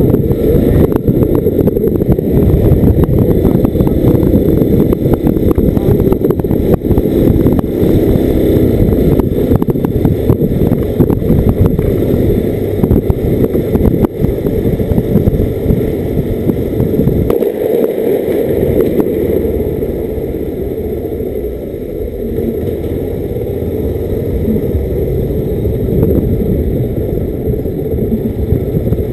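A 250 cc motorcycle's engine running at low town speed, heard from the rider's camera as a steady low rumble, with a brief lull about 17 seconds in.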